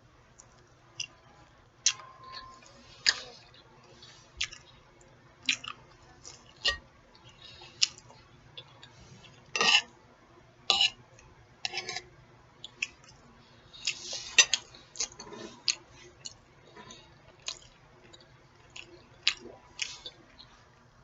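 Close-miked eating: chewing with wet lip smacks and sharp mouth clicks, at irregular spacing of about one every half second to a second.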